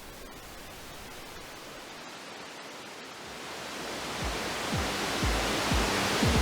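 Static hiss swelling steadily louder, with deep electronic drum hits that drop in pitch coming in about two-thirds of the way through and growing more frequent: a noise build-up leading into electronic music.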